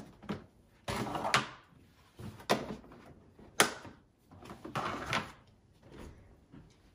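Several separate knocks and clatters, roughly a second apart, with short scraping and rustling among them, like objects, drawers or cupboard doors being handled. The sharpest knock comes about halfway through.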